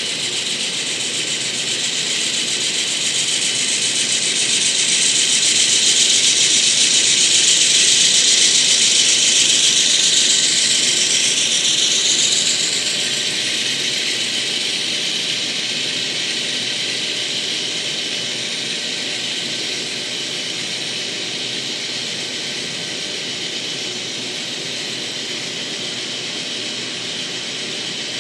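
N-scale model freight train running on track: a steady mechanical whirring rattle from the locomotive motors and the wheels on the rails. It grows louder as the two diesel locomotives pass close, peaks, then eases about halfway through as the freight cars roll by.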